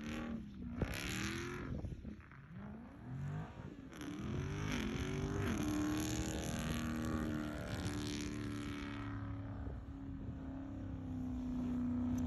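A car engine revving up and falling back several times, then held at high, steady revs for several seconds, as when spinning the wheels and doing donuts in snow.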